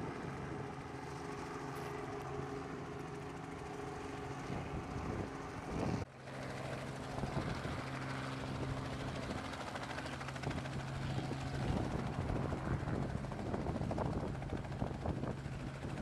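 Steady low drone of a boat's engine, holding one pitch, with wind on the microphone. The sound breaks off briefly about six seconds in, then carries on.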